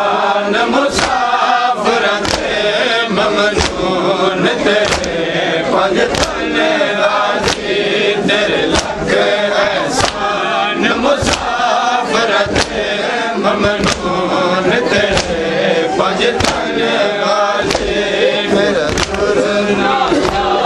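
Crowd of male mourners chanting a noha lament in unison while beating their chests together in matam, a sharp slap landing about every 1.3 seconds.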